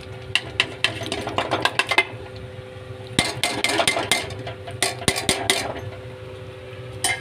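Metal spoon clinking and scraping against a bowl and the kadai rim as fried paneer cubes are tipped into thick masala gravy, in two flurries of quick clinks, over a steady low hum.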